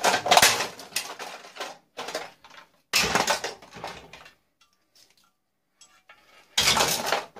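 Scrap parts from a dismantled tube TV clattering and clinking as they are handled: several bursts of rattling knocks, a pause of about two seconds, then one more short clatter near the end.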